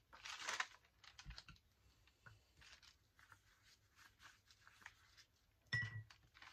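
Soft rustling and light tapping of hands handling and smoothing damp paper pages on a cutting mat, with a rustle in the first second and a short bump near the end.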